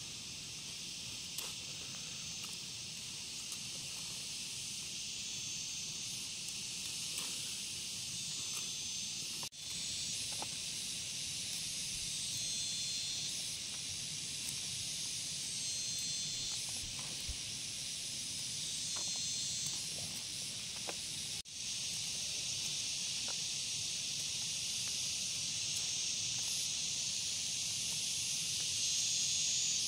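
A steady, high insect chorus in the field, with faint rustling and small clicks from peanut plants being handled as pods are picked off. The sound breaks off briefly twice.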